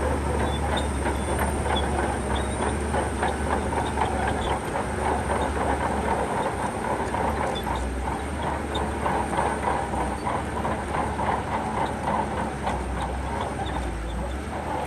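Shantui crawler bulldozer working: its diesel engine runs steadily under a rapid, continuous clatter of steel tracks.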